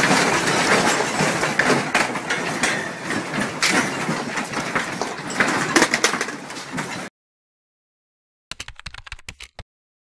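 A room shaking in an earthquake: shelves and the objects on them rattling and clattering over a constant noise, cutting off suddenly about seven seconds in. A short run of clicks follows about a second and a half later.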